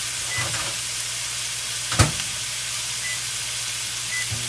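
Food sizzling steadily as it cooks on high heat, with a single sharp knock about two seconds in.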